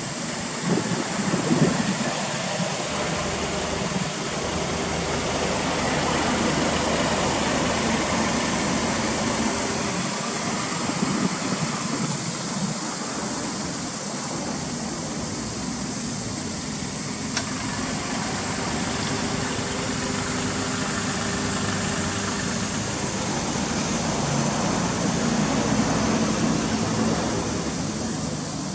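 Steady outdoor noise of wind buffeting the microphone over a low, even rumble.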